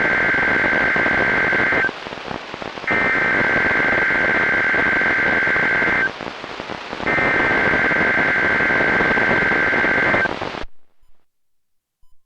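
Three bursts of EAS SAME header data from a NOAA Weather Radio transmitter, each a buzzy two-tone warble lasting about three seconds with a second of radio hiss between, received with static. The signal cuts off suddenly near the end.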